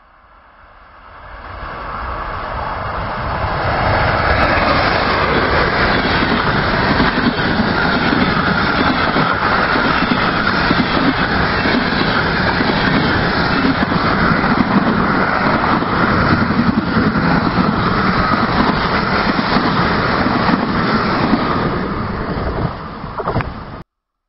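Passenger train with car-carrier wagons (an Autozug) passing close by: the rolling noise of wheels on rails builds over the first few seconds, runs steady and loud while the coaches and wagons go by, then cuts off suddenly near the end.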